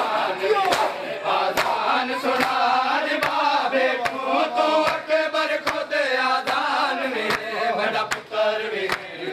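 Mourners performing matam: many open palms slapping bare chests in unison, a little faster than once a second, under a noha chanted by men's voices together.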